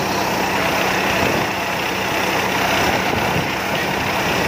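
Rice combine harvester's engine and machinery running steadily at a constant speed, a loud even drone with a steady low hum.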